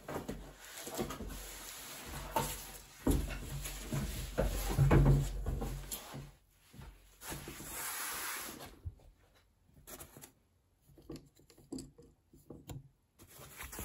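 Packing material in a cardboard box being handled: a run of dull bumps and knocks for the first six seconds, a couple of seconds of rubbing as polyethylene foam slides against the box, then scattered light taps.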